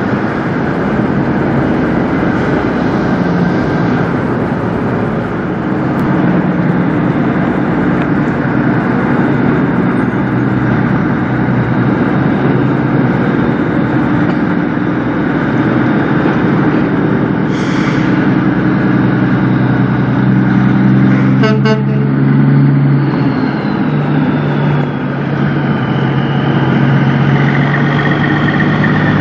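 Semi-truck diesel engines running as tractor-trailers pull slowly through, a steady low rumble. A short hiss comes a little past halfway, and a quick rattling burst a few seconds after it.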